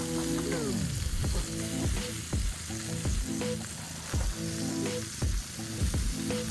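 Chicken sizzling as it grills over charcoal, an even hiss, under background music with a steady low beat.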